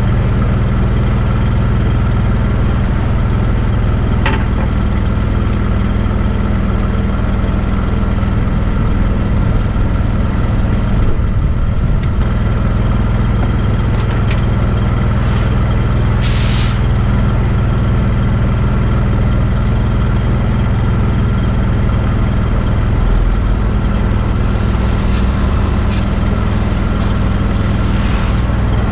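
Engine-driven welding machine on a welding rig truck running steadily. A few sharp clicks and short hisses sound over it, one hiss about halfway through and a longer patch of hissing near the end.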